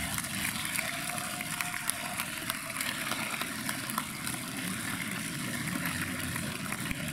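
Audience applauding: a steady patter of many claps.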